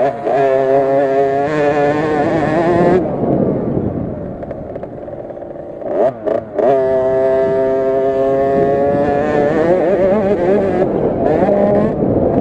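KTM SX50 minibike's 50cc two-stroke engine, heard onboard at high revs. It eases off for a few seconds about three seconds in, gives a couple of quick throttle blips, then revs back up and holds high revs through the corners.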